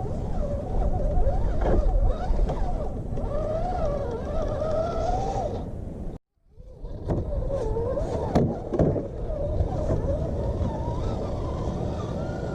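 Electric motor and gear drivetrain of a Redcat Gen8 scale RC rock crawler whining, the pitch rising and falling with the throttle over a low rumble. A few sharp knocks come through around eight to nine seconds in. The sound cuts out abruptly about six seconds in and then fades back in.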